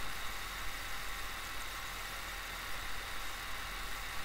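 Steady background hum and hiss with a faint low hum underneath, unchanging and with no distinct events.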